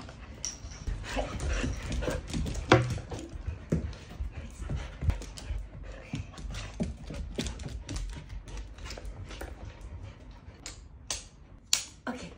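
An excited dog panting while it is strapped into a dog wheelchair, with many irregular clicks and knocks from the wheelchair's frame and harness buckles being handled.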